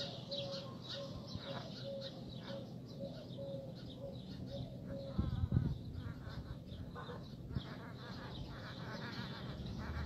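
Birds chirping repeatedly in the background, with a faint held tone over the first half.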